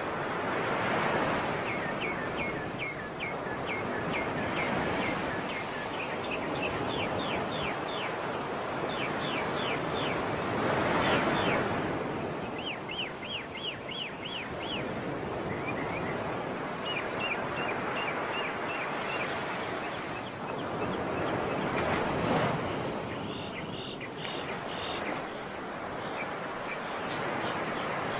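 Sea waves washing in, swelling loudest about a second in, around eleven seconds and around twenty-two seconds. Over them a bird calls in quick runs of short, high chirps.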